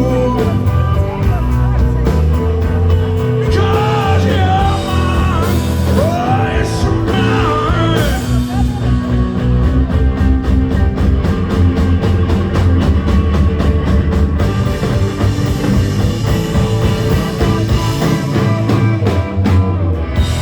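Rock music with a singing voice in the first part. It then carries on with the band alone, playing a steady, driving beat.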